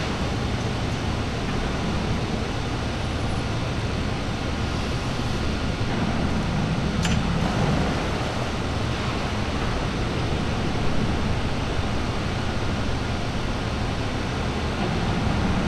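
Police patrol boat's engines running as it manoeuvres off, a steady low rumble mixed with the wash of its propellers. A brief click sounds about seven seconds in.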